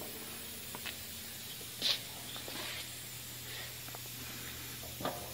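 Workshop background noise: a steady low hum under an even hiss, with a few light clicks and a short hiss about two seconds in.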